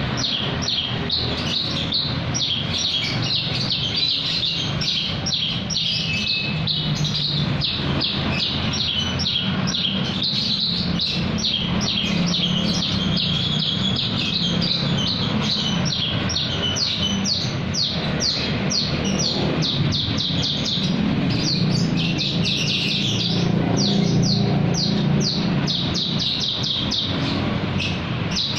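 Branjangan (Javan bush lark) singing a continuous, fast song of short, quickly repeated downward-sweeping notes, over a steady low hum.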